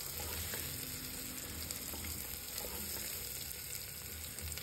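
Potato cubes frying in hot oil with onions in a pressure cooker, a steady sizzle, while a wooden spatula stirs them with a few faint clicks.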